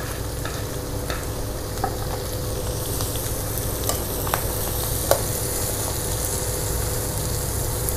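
Mushrooms and freshly added, coarsely chopped shallots, garlic and chilies sizzling in oil in a wok while a metal ladle stirs them, with a few sharp clicks and scrapes of the ladle against the wok.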